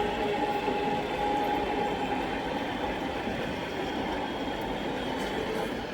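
Steady mechanical running noise with a faint steady whine during the first two seconds.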